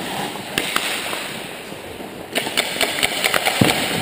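Ice hockey play around the goal: skates scraping on the ice, with a quick run of sharp stick and puck clacks in the second half.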